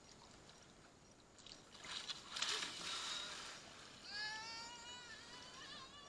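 Floodwater sloshing and splashing for a second or two, starting about a second and a half in. About four seconds in comes a high, wavering call with a clear pitch, lasting about two seconds.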